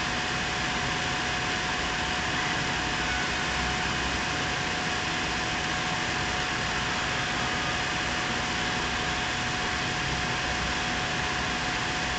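Steady, even background hiss with a faint constant hum tone, unchanging throughout.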